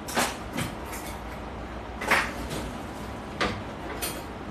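About five short knocks and clicks at irregular intervals, the loudest about two seconds in, over a faint steady low hum.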